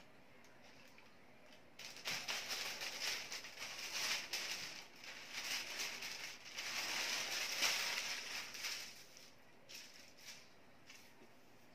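Thin kite paper (papel de hapon) rustling and crinkling irregularly as the kite is lifted and pressed flat. It starts about two seconds in and dies away after about nine seconds, followed by a few light taps.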